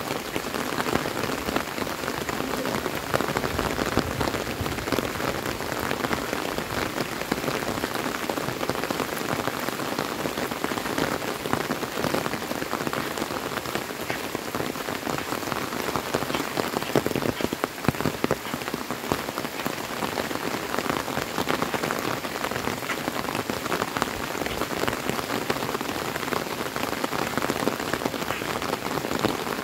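Steady rain falling: an even hiss dotted with many close individual drops ticking.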